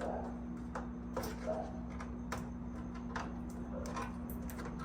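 Scattered light clicks and taps of hands handling a new microwave and its stickers, over a steady low hum.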